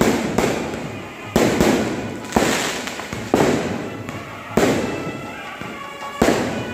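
Aerial fireworks shells of a non-stop festival display bursting one after another, a sharp bang every second or so, each fading out over about a second.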